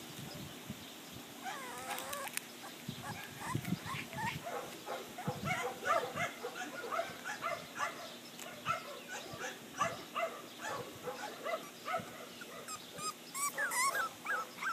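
Six-week-old English bulldog puppies whining and yipping in many short, rising and falling squeaks, one after another.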